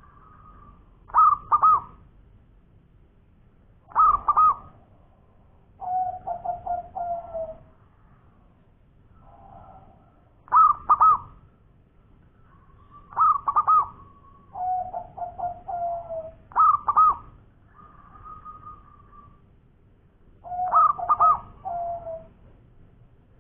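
Zebra dove (perkutut) singing. Loud phrases of two high coo notes recur every few seconds, several of them followed by a lower, rapid stuttering trill of notes.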